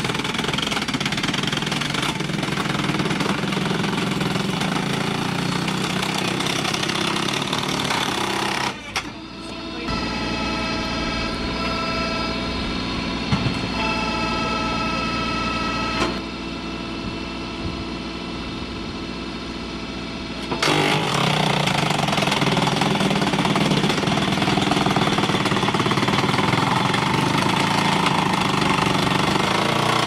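Tractor engine driving a hydraulic star-wedge firewood splitter, running steadily under load while log rounds are pushed through the wedge, with an occasional knock of wood. The level drops briefly about nine seconds in and rises again for the last third.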